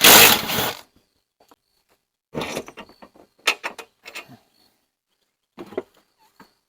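Hand-work clatter from tools and metal parts: a loud burst of noise lasting under a second at the start, then three short clusters of clicks and clanks with quiet between.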